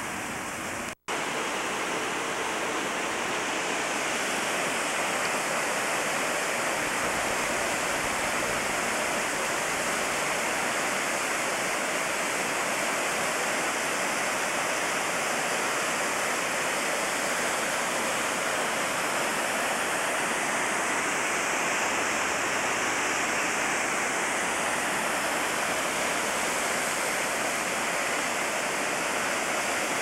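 Two-tiered mountain waterfall rushing steadily over rock. The sound drops out briefly about a second in, then the steady rush runs on.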